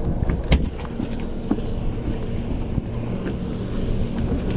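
Boat engine running steadily with a low hum, kept on to hold position, with one sharp knock about half a second in and a few lighter clicks after it.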